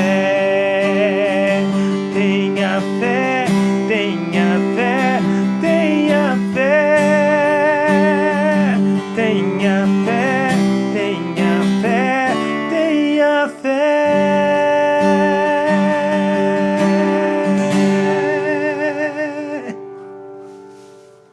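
Taylor 114e steel-string acoustic guitar playing the song's closing chords under a wordless, wavering sung melody, then a final chord held and fading out near the end.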